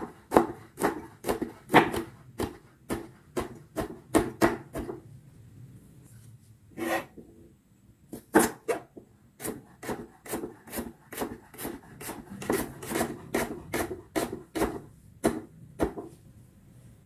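Kitchen knife slicing chilies, then garlic and shallots, on a wooden cutting board: a steady run of sharp taps of the blade against the wood, about two to three a second, with a pause of a couple of seconds near the middle.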